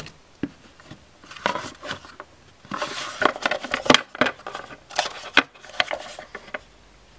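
Packaging being handled as earbuds are unpacked: irregular rustling and small clicks, loudest a bit under halfway through.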